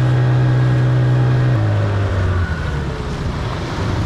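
Small boat's outboard motor running steadily, then easing off in steps about one and a half and two and a half seconds in.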